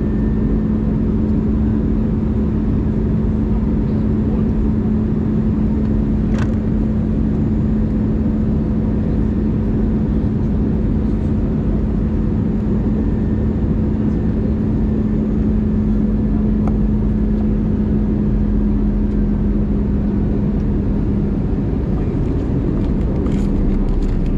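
Steady cabin noise of an Airbus A320 in flight, heard from a window seat over the wing: the drone of the jet engines and airflow with a steady low hum. A single sharp click about six seconds in.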